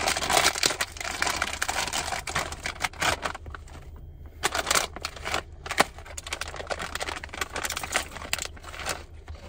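Foil bag of cheese Doritos tortilla chips crinkling and crackling as it is opened and hands rummage inside, with a brief lull about four seconds in.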